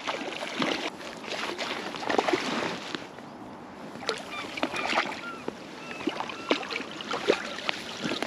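Hooked trout splashing and thrashing at the water's surface in irregular bursts as it is played in close to the bank, with the landing net dipping into the water near the end.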